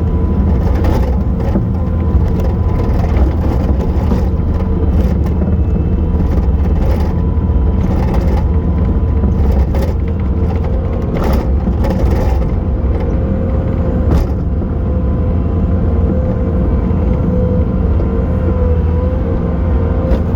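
Bobcat T870 skid steer's diesel engine running steadily with a constant whine, working through wet snow, with scattered knocks and clunks from the machine.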